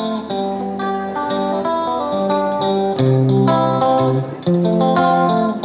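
Background music carried by guitar, plucked notes and chords in a steady melody.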